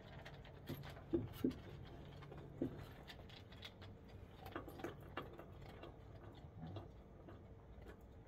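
Scattered light clicks and taps, with a few sharper knocks in the first three seconds and another cluster about halfway through, as a dog shifts and lies down on its side on a wooden deck. A faint steady hum runs underneath.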